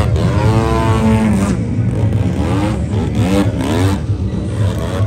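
Engine of a flying RC model airplane, its pitch repeatedly rising and falling over a steady low rumble.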